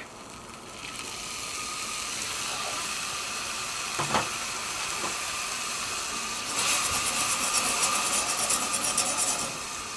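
Cognac sizzling and hissing in a small hot cast iron pot of ketchup and tomato paste. There is a single knock about four seconds in, and the sizzling grows louder for about three seconds near the end.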